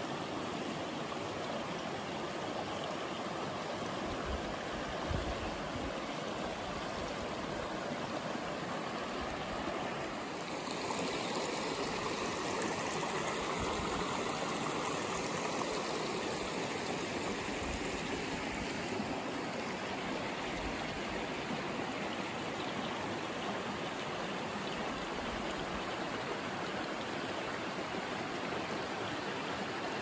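Shallow rocky creek running over stones with a steady rushing of water. It grows a little louder and brighter about ten seconds in and eases back a little before twenty seconds.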